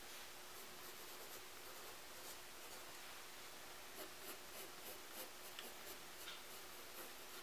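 Faint scratching of a graphite pencil stroking across paper while shading and drawing lines. A quiet hiss at first, then a run of short, quick strokes from about halfway through.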